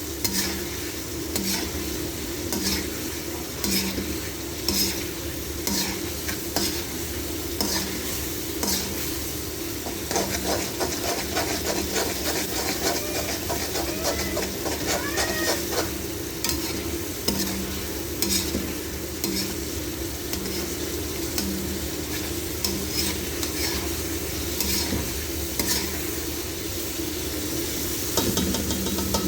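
Chicken karahi sizzling as it fries in a karahi pan, stirred over and over with a metal spoon that scrapes and clicks against the pan.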